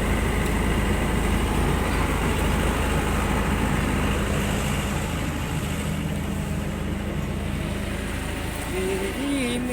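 A steady low engine rumble with a constant hum, mixed with background voices; near the end a few short sung or melodic notes come in.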